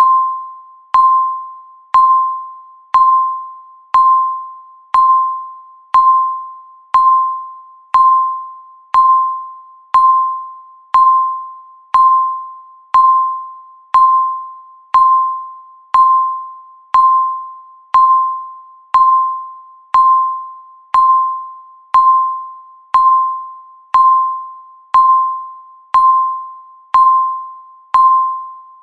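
Countdown timer beeping once a second: a single clear electronic beep at one steady pitch, each starting sharply and dying away before the next.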